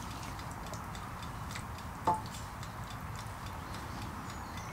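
A wooden spatula spreading ragù in a metal loaf tin: faint irregular ticks, and one sharp knock about two seconds in as the spatula strikes the tin.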